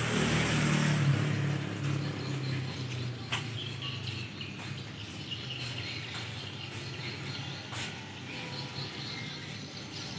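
Outdoor background: the hum of a motor vehicle's engine, loudest at the start and fading over the first few seconds, with small birds chirping faintly and a few light clicks.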